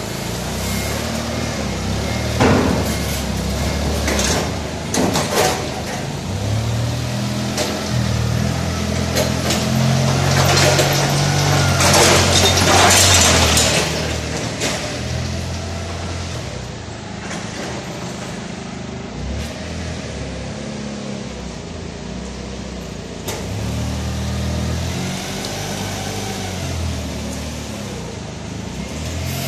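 Forklift engine running, its pitch rising and falling as the lift works, with sharp knocks and clanks, loudest in the first half.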